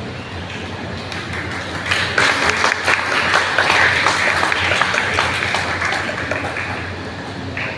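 Audience applauding, swelling about two seconds in and fading away over the last couple of seconds.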